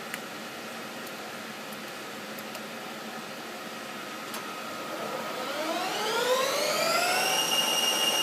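Bridgeport EZ-Path II CNC lathe spindle starting up from a keypad command, its motor whine rising in pitch for about two seconds and then holding steady as the chuck reaches 1100 RPM. A single click comes near the start over a steady low machine hum.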